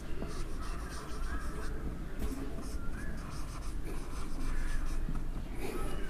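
Dry-erase marker writing on a whiteboard: short scratching strokes of the felt tip with a few brief squeaks.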